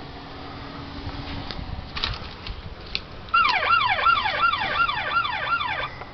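Battery-operated toy police car's electronic siren, a fast warbling wail that rises and drops about three times a second for a couple of seconds, then cuts off. A few clicks come before it. This is the sound that went off at night when wind shook the box it was stored in, and that was taken for a cheap car alarm.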